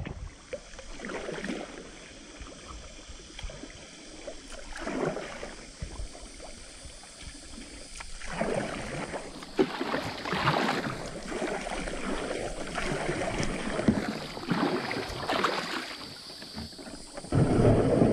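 Kayak paddle strokes splashing through river water, with water washing along the hull. Near the end, the kayak's plastic hull scrapes up onto a concrete boat ramp, louder than the paddling.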